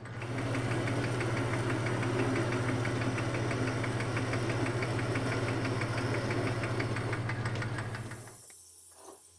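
Logan metal lathe running with a steady hum and a fast, even ticking, then switched off about eight seconds in. A few faint clicks follow near the end.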